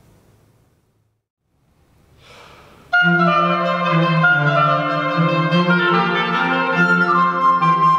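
A last note dies away into near silence, then a short breath-like hiss. About three seconds in, oboe and cello start playing a Baroque sonata together, and the recorder joins a little later.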